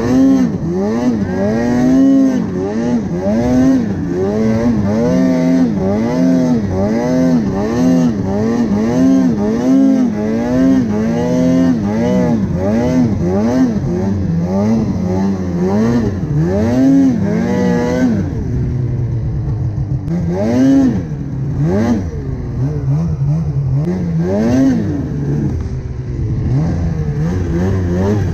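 Polaris 850 Khaos two-stroke snowmobile engine being ridden with constant throttle work, revving up and down about once a second. About 18 seconds in it drops to a lower, steadier running, with a few short blips of throttle.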